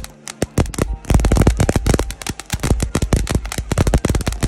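Fireworks going off: a rapid, dense run of sharp cracks and pops, thinner for the first second and packed close together after that.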